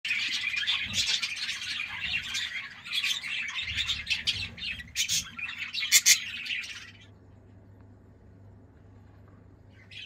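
Budgerigars chirping rapidly and continuously, then stopping abruptly about seven seconds in; a few sharp chirps come back near the end.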